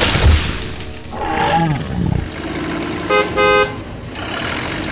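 A car horn sound effect honking twice in quick short blasts about three seconds in. Before it come a low crashing rumble at the start and a gliding, wavering pitched sound effect about a second in.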